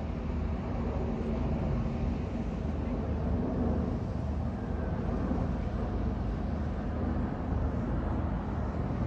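Steady low rumble and hum of engines with an even background wash, no single event standing out.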